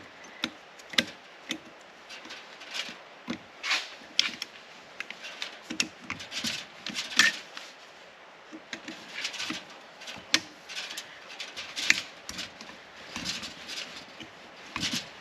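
Irregular metal clicks, taps and scrapes from hand tools working a rusted part loose on an old front strut and hub assembly.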